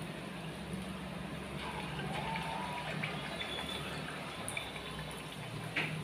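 Sabudana (tapioca pearl) mixture frying in hot oil in a steel pan: a steady sizzle and bubbling, with a steady low hum underneath and one sharp click near the end.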